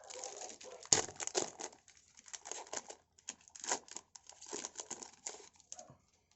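Trading-card pack wrapper being torn open and crinkled, an irregular run of crackles with a sharp snap about a second in, ending after about six seconds.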